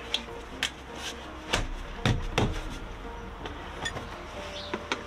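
Peugeot Boxer's plastic footwell floor cover over the battery compartment knocked and thumped into place by hand: about seven sharp knocks, the loudest a pair about two seconds in. Faint background music underneath.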